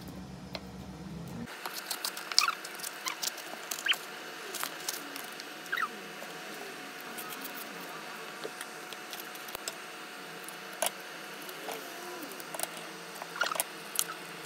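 A paper milk carton being torn and peeled open by hand: irregular crackling, crinkling and tearing of the carton board, with a cluster of louder crackles near the start and again near the end.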